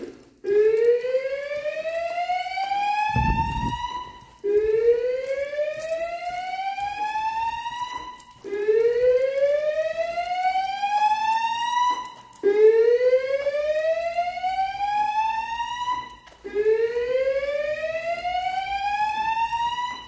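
Fire alarm speakers of a Notifier NFS2-3030 voice-evacuation system sounding the slow whoop evacuation tone: five rising sweeps, each about four seconds long, repeated back to back. This is the evacuation signal that alternates with the recorded voice message telling occupants to leave by the stairs.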